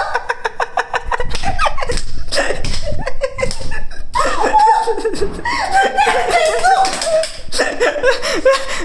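A young woman laughing hard, first in quick rapid-fire pulses, then in longer, higher, wavering peals.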